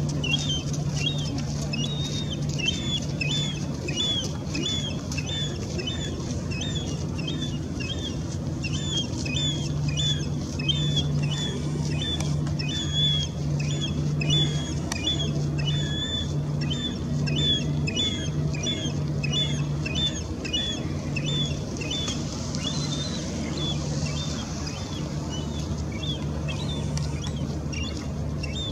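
First-year glaucous-winged gull giving its high, thin begging call over and over, about two to three short notes a second, asking a parent for food. A low steady hum runs underneath.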